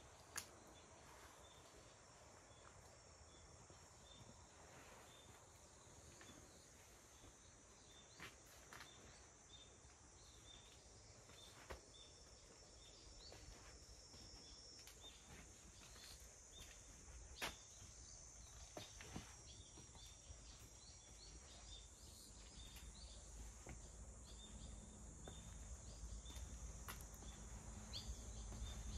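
Near silence: a faint steady high-pitched insect drone, with scattered faint chirps and a few soft clicks.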